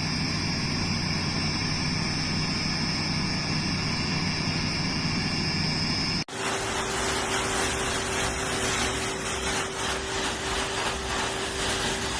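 Electric high-velocity dog blow dryer running steadily, a motor hum with a high whine. About six seconds in the sound cuts abruptly to a rushing blast of air with a lower steady tone.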